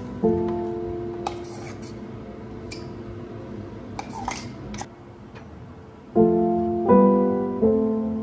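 Soft background piano music in slow chords that ring and fade. Mixed in are a few short clicks and scrapes of a metal spoon on the jar and container as fried onion paste is scooped out.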